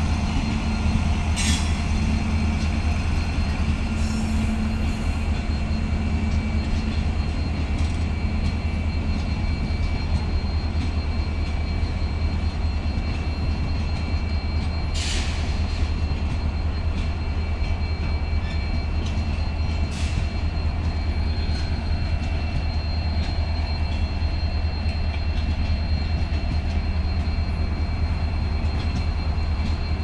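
Indian Railways LHB passenger coaches rolling past on the rails: a steady heavy rumble of wheels on track with a faint, steady high squeal, and a few sharp clanks, one near the start and two more in the second half.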